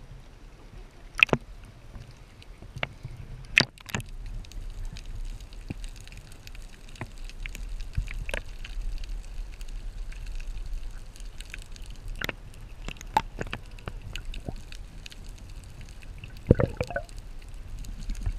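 Water sloshing and gurgling around a waterproof camera held at and just below the sea surface, with a low underwater rumble and scattered sharp clicks and knocks, the loudest near the end.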